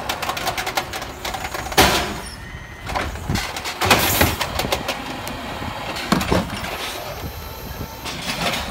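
Autocar ACX natural-gas refuse truck's Amrep HX-450 automated side-loader arm lifting a recycling cart, tipping it over the hopper and setting it back down, with the truck's engine and hydraulics running. Loud clanks and rattles about two, four and six seconds in as the cart knocks against the arm and its contents drop into the hopper.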